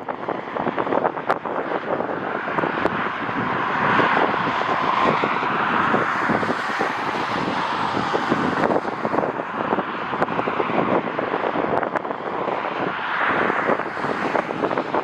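Jet airliner engines passing, swelling in the middle, under heavy gusty wind buffeting the microphone.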